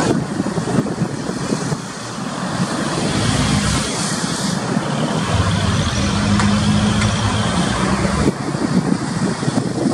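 Twin jet engines of an Airbus A320-family airliner at takeoff thrust: a loud, steady roar as the plane lifts off and climbs away, with a low hum in it.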